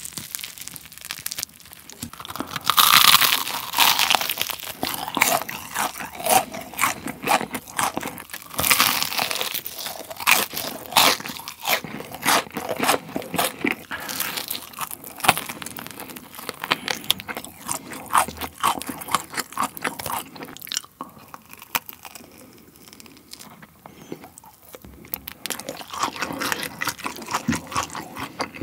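Crispy fried chicken being bitten and chewed close to the microphone, with loud crunching of the coating. The crunching is loudest in the first half, eases to softer chewing a little past the middle, and picks up again near the end.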